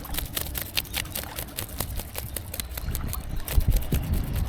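A knife scraping the scales off a freshly caught fish, in quick strokes several times a second.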